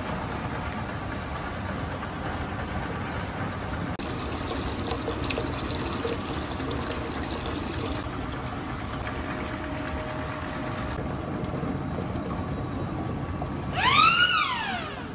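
Steady machine noise from a wire-insulating line, with water pouring and splashing from its cooling trough. Near the end, a loud pitched sound rises and then falls in pitch once.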